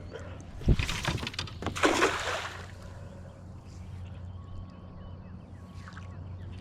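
A low knock on the kayak, followed by two bursts of splashing water about a second long each, then the water settling quietly.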